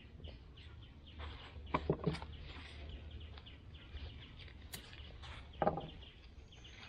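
Light knocks and clunks of camping cook gear being handled and set down on a wooden picnic table: a few about two seconds in and one near the end. Birds chirp faintly in the background.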